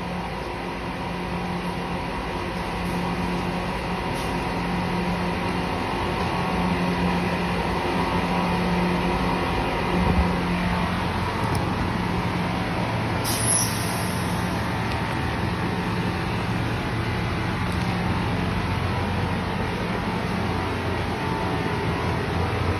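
A spray-painting air compressor's motor running steadily, with a pulsing hum and a constant hiss. A short, sharp burst of air hiss comes about halfway through.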